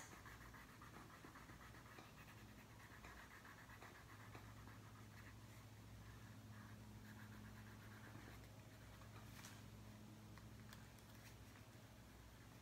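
Near silence: a low steady hum with faint scratching of a crayon drawing lines on paper.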